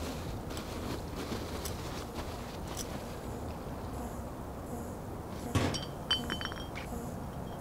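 A low, steady rumble of night street ambience. About five and a half seconds in comes a sharp knock, then a few short clinks that ring on with high, steady tones.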